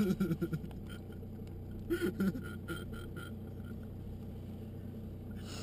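Steady low drone of a car's engine and road noise inside the cabin, with men laughing briefly at the start and again about two seconds in.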